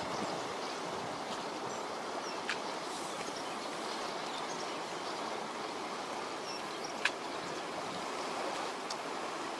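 Steady rushing of the flooded river's fast-flowing water, with two faint clicks, one about two and a half seconds in and one about seven seconds in.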